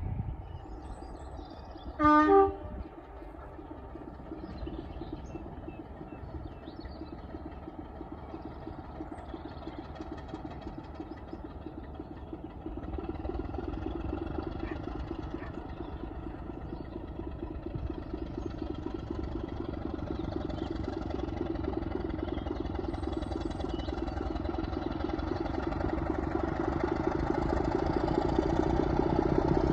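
A train horn sounds one short blast about two seconds in. Then a heritage railway locomotive runs with a steady rumble that grows gradually louder as the train draws nearer.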